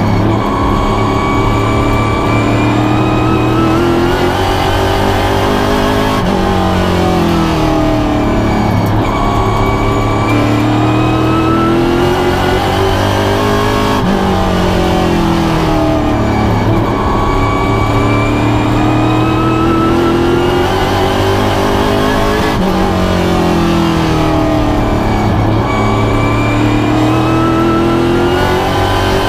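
Pro Stock race car's V8 engine heard from inside the cockpit during racing laps on an oval. The revs drop going into each turn and climb again on the straights, over and over.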